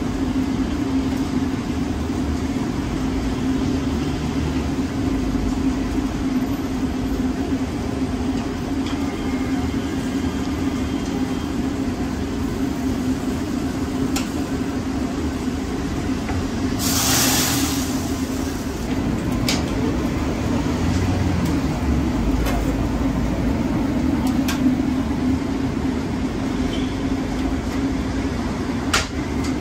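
Steady hum of a shawarma kitchen's extractor hood and gas broiler running, with a few sharp clicks of the knife as chicken is shaved off the vertical spit. A brief hiss comes a little past halfway.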